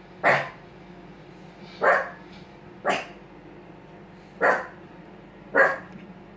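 A dog barking: five short, sharp single barks, spaced roughly a second or so apart.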